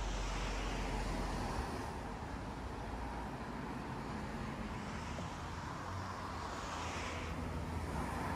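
Street traffic: cars passing on the road, their engine and tyre noise swelling twice, once near the start and again about seven seconds in, over a steady low rumble.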